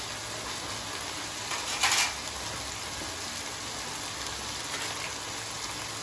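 Chicken pieces sizzling steadily in oil in a non-stick kadai, with one brief louder crackle about two seconds in.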